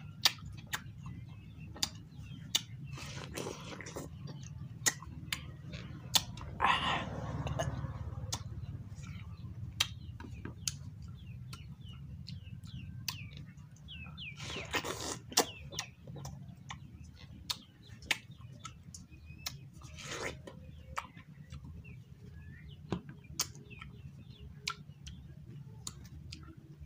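Close-up eating of watermelon: juicy bites and slurps several times, with many small wet chewing clicks between them. Faint bird chirps in the background over a steady low hum.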